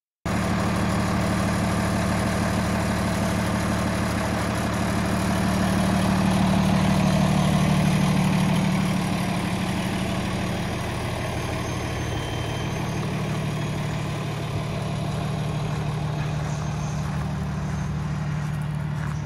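Cummins ISX diesel engine of a 2013 Freightliner M2 dump truck idling steadily. It cuts in just after the start and grows louder for a few seconds midway before settling back.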